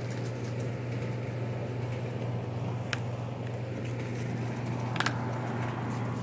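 Steady low hum of a running outdoor air-conditioner condenser unit, with two brief light clicks about three and five seconds in.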